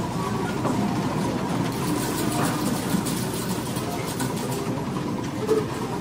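Casino floor ambience: a steady, busy murmur of many voices with a faint held electronic tone and scattered clicks and clinks from slot machines.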